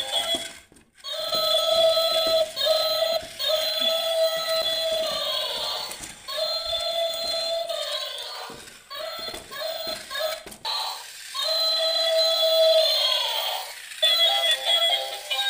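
Battery-operated toy elephant's small speaker playing a tinny electronic tune of held notes, broken by short pauses.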